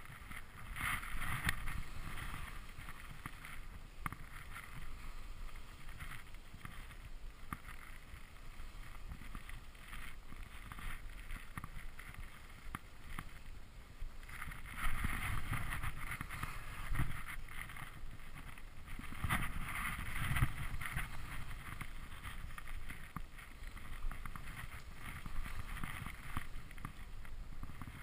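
Skis hissing and scraping over snow through mogul turns, with wind rushing over the camera microphone. The noise swells and fades in uneven surges.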